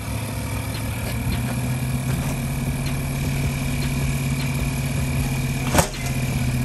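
Go-kart engine idling steadily, with one sharp knock near the end.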